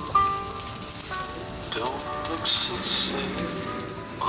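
Food sizzling as it fries in a hot pan, flaring louder twice around the middle, with background music.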